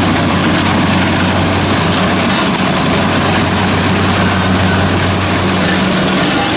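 Kubota DC-60 combine harvester's diesel engine running steadily under load while it cuts rice: a constant low drone with a dense mechanical din over it.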